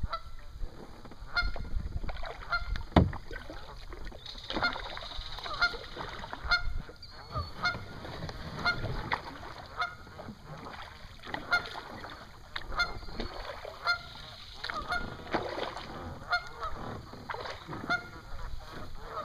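A flock of Canada geese honking over and over in many short calls, the alarm calling of geese on alert at an approaching kayak. A single sharp knock comes about three seconds in.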